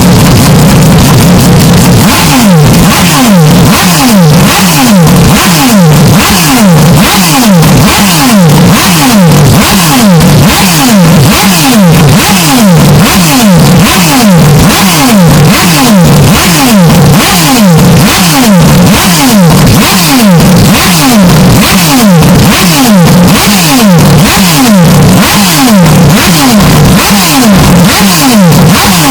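Heavily bass-boosted, distorted race-car engine sound, very loud and clipping. After a steadier drone, a quick run of falling pitch sweeps starts about two seconds in and repeats roughly twice a second.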